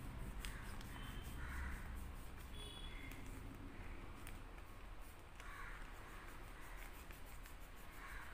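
Faint rubbing of perfume-soaked cotton wiped across a printed paper bill, in a few soft strokes over a low steady hum.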